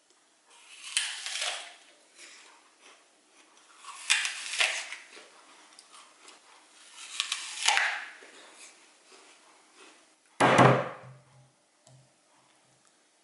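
Three crunchy bites into a raw peeled onion, each a short crackly crunch about three seconds apart. Then a hard thud as the onion is set down on a wooden cutting board.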